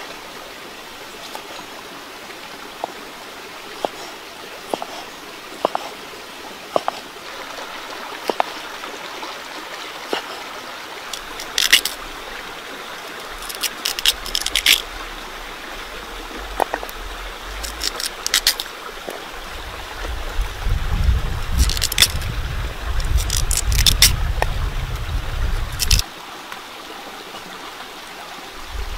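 Knife tapping on a wooden cutting board as cherry tomatoes are sliced, a click about once a second, over steady rushing background noise. Later come sharper clusters of clicks and, near the end, a low rumble that stops suddenly.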